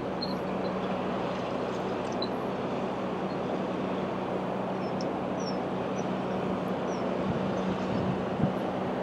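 Diesel engine of a loaded inland cargo barge running with a steady low drone as the vessel moves slowly.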